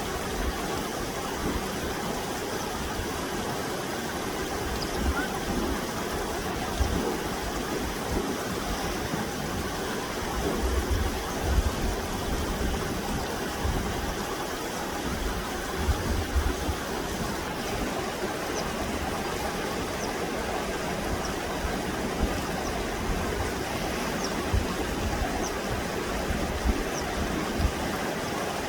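Running water rushing steadily, like a stream. From about two-thirds of the way in, a bird gives faint short chirps about once a second.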